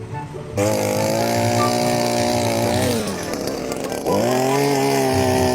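A small engine or motor running at high speed, starting suddenly about half a second in; its pitch sags and fades for about a second in the middle, then revs back up and holds steady.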